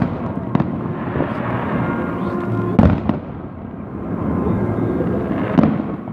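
Fireworks salute going off: a continuous din of bursts punctuated by a few sharp bangs, the loudest near the middle.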